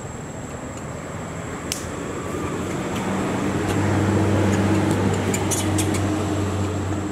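A motor engine hums past, growing louder about three seconds in and easing off near the end, over a constant thin high insect whine. A few sharp clicks sound about two seconds in and again later.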